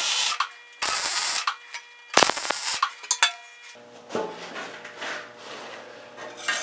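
Welder laying weld on joints of 3/8-inch mild steel round stock in three short bursts of about half a second each, building up the weld. Then quieter handling noise with a faint low hum.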